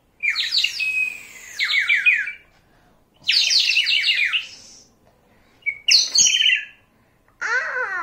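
Water-filled clay bird whistle blown in three bursts of fast, warbling, trilling chirps that mimic birdsong.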